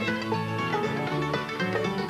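Bluegrass band playing an instrumental break with no singing: a banjo picks quick rolling notes over strummed guitar.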